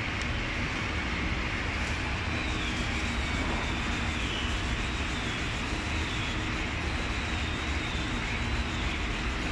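Steady mechanical drone of workshop machinery or ventilation, with a low rumble, and a faint high whine that wavers up and down from about two seconds in.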